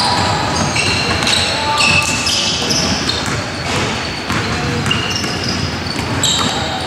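Basketball play on a gym court: the ball bouncing and many short, high sneaker squeaks on the floor, with voices in the background.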